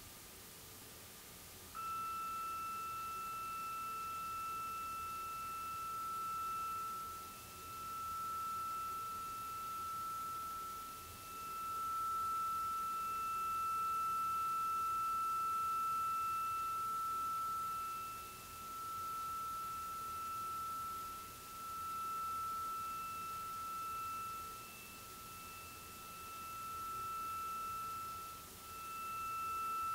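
A steady, high-pitched pure tone from two small loudspeakers mounted on the ends of a pivoting bar, turning on louder about two seconds in. Its loudness swells and dips again and again as the bar is turned, the loud and quiet spots of interference between the two speakers.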